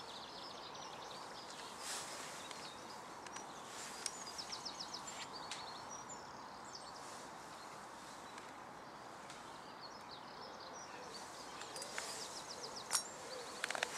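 Small birds singing in short rapid trills and chirps over a steady outdoor hiss, with a few sharp clicks, the loudest near the end.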